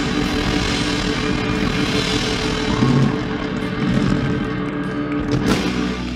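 Live rock band of acoustic guitar, electric bass, electric guitar, keyboard and drums playing the closing bars of a song, with a final crash about five and a half seconds in and the last chord ringing on.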